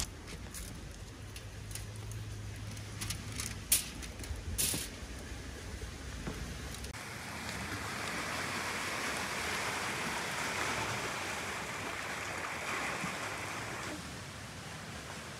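Sea washing against a rocky shore: a steady hiss of surf. In the first half, a few sharp crackles of aluminium foil being handled.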